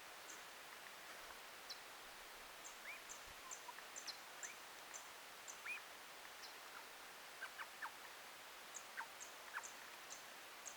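Scattered short, high bird chips and brief falling call notes over a faint steady hiss, clustering in a run about three to six seconds in and again near the end.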